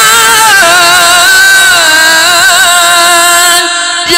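Quran recitation in melodic tajweed style: a single reciter holds a long, ornamented vowel that wavers and steps down in pitch twice. It breaks off briefly near the end for a breath, then resumes.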